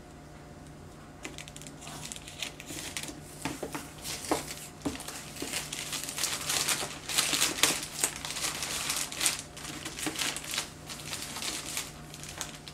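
Plastic mailer bag crinkling and rustling as it is cut and torn open by hand, in irregular crackles that are quiet at first and loudest midway.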